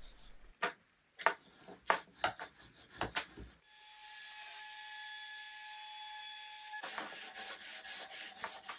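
A few sharp wooden knocks as boards are handled. About three and a half seconds in, a trim router starts with a steady whine. From about seven seconds it turns rougher and full of small clicks as it cuts along the wooden edge of the cabinet.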